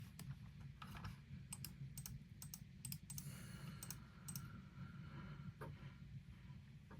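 Faint, irregular small clicks, several coming in quick pairs, over a low steady hum.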